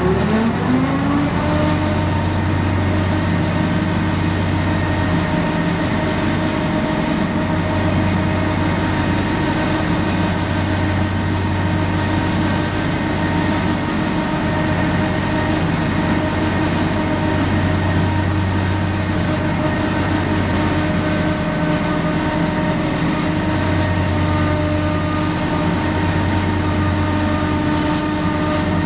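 Diesel engine of a John Deere 3025E compact tractor rising in pitch as it is throttled up, then running steady at working speed while driving a finish mower. A low hum swells and fades every few seconds.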